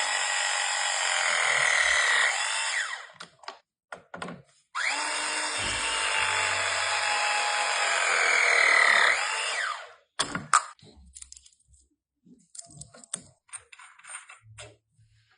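Power tool running in two long runs: it stops about three seconds in, starts again nearly two seconds later and stops about ten seconds in. Scattered sharp clicks and light knocks follow.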